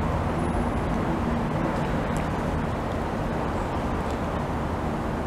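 Steady low background rumble of an open-air railway platform, with no distinct event standing out.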